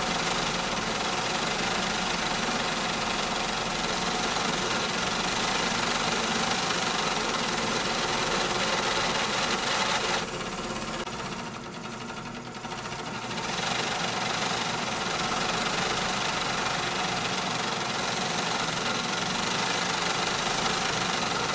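Factory machinery running steadily: a dense mechanical din with several steady hums. About ten seconds in, the high hiss drops away for a few seconds and then returns.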